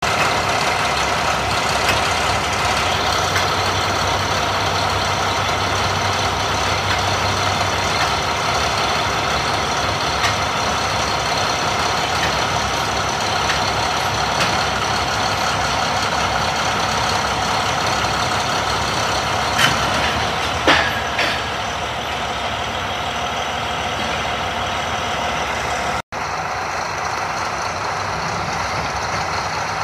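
Diesel engines of heavy crawler machines (Caterpillar 583 sidebooms and a crawler dozer) running steadily at close range, with a steady whine over the engine noise. Two sharp metallic clanks ring out about twenty seconds in.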